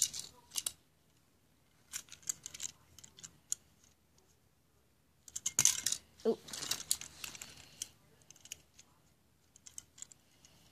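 Toy cars and their packaging being handled: scattered clicks, taps and rattles in several short bursts with quiet gaps between.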